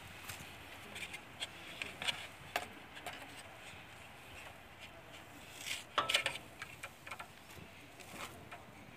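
Scattered light clicks and taps of hands handling a fiber cable and its small plastic fittings, with a short run of louder clicks about six seconds in.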